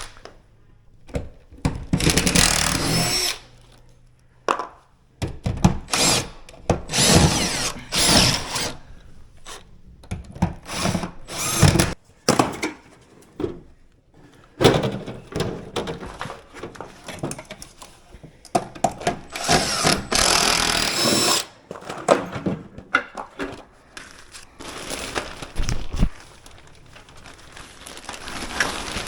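A handheld power drill runs in repeated short bursts of one to two seconds, with knocks and clatter between the bursts.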